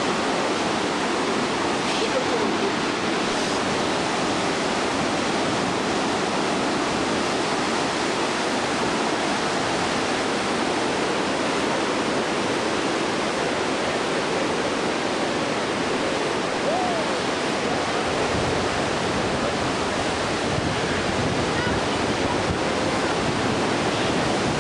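Yosemite Falls and Yosemite Creek in torrential late-spring flow: a steady rush of falling and churning water.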